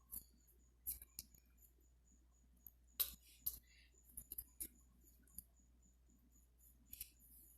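Faint, irregular clicks and short rustles, a few scattered over several seconds, the sharpest about three seconds in.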